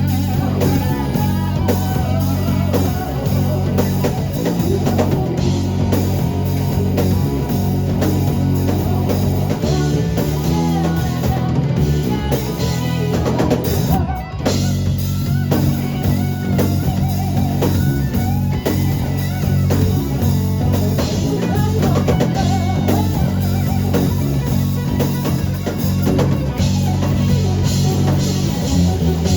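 Rock band playing live, with a drum kit and guitars, and a brief break about halfway through.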